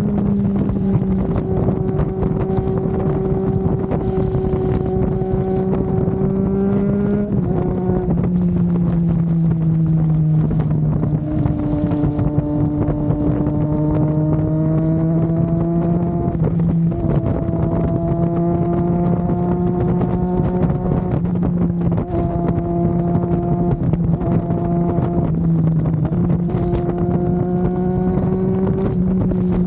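Triumph Daytona 660's inline three-cylinder engine running at steady cruising revs under way, its pitch easing and rising slightly with small throttle changes and stepping down about seven seconds in. Wind rush on the microphone runs beneath it.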